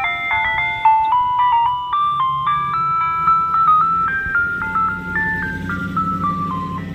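Ice cream van's loudspeaker playing its jingle, a simple electronic chime melody of clean stepped notes, which stops near the end. The van's engine hum builds underneath from about two seconds in as it drives off.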